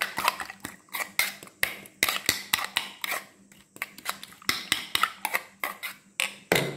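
A spoon beating raw eggs with onion and chilli against the inside of a metal karai: quick, uneven clinking and scraping strokes, several a second, slackening briefly about halfway through.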